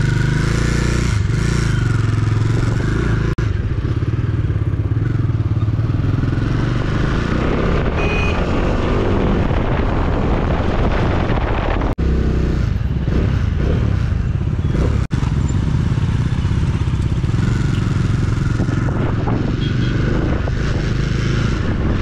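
Bajaj Dominar 400 single-cylinder motorcycle engine running steadily on the move under a steady rushing noise. The sound cuts out for an instant a few times.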